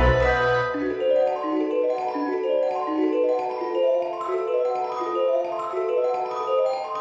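Background Christmas music: a quick, even run of short melody notes, with low bass notes that stop about a second in.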